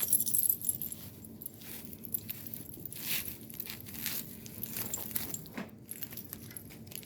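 Faint rustling and small, scattered clicks of objects being handled.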